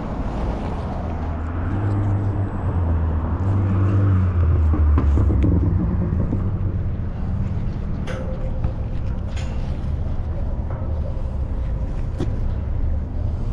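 A motor vehicle's engine passing on the road over the bridge: a low rumble that swells about two seconds in, peaks around five seconds, and settles back into a steady traffic rumble with a few faint clicks.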